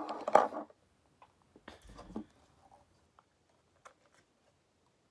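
Handling sounds of a paper coffee cup: a short rustle and clatter at the start, a soft thump about two seconds in, then a few faint clicks as the cup is lifted and drunk from.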